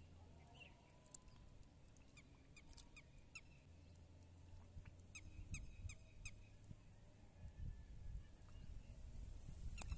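Faint outdoor ambience: short chirping animal calls repeating in quick clusters, over a low steady hum.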